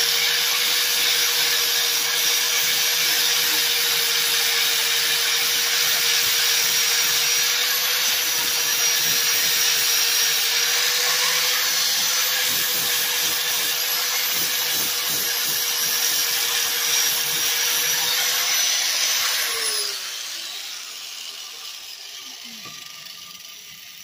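Electric angle grinder with an 80-grit flap disc running steadily as it sands down fiberglass body filler on a car door. About twenty seconds in it is switched off and its pitch falls as it spins down.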